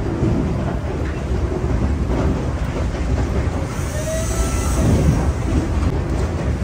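Steady low rumble inside a Vande Bharat express chair-car coach as the electric train runs on the rails, with a brief faint squeal about four seconds in.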